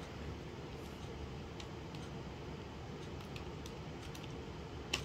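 Faint, scattered key presses on a computer keyboard while a text file is edited, over a steady low background hum, with a sharper click near the end.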